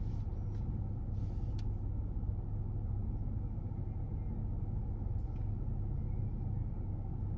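Steady low hum of a car idling while stopped, heard from inside the cabin, with a couple of faint ticks.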